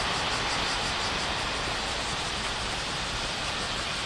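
Steady rushing noise of a Shinkansen train passing the platform, easing off slightly.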